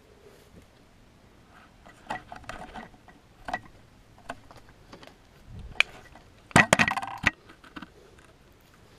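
Scattered scuffs, clicks and crackles of a hiker scrambling up a rock ledge, with a louder run of clicks and crackles about six and a half to seven and a half seconds in.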